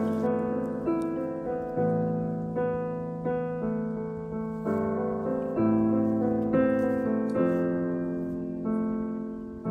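Solo piano music: a slow, gentle melody of single notes and chords, each struck note ringing and fading before the next.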